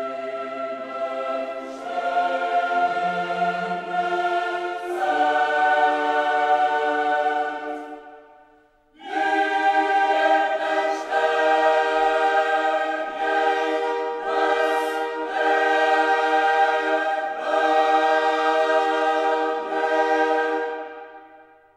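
Choral music: voices singing slow, held chords. It fades out about eight seconds in, comes back a second later with a new phrase, and fades away again near the end.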